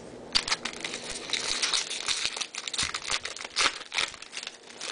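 Plastic foil wrapper of a Topps baseball card pack crinkling as it is handled, a dense run of crackles from about half a second in until near the end.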